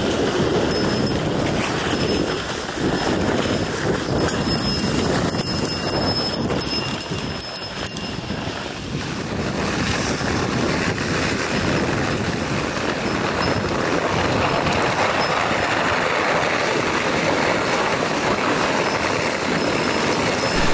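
Dog sled running over packed snow behind a team of Siberian huskies: a steady rushing hiss of the runners on the snow, with the rattle of the moving sled.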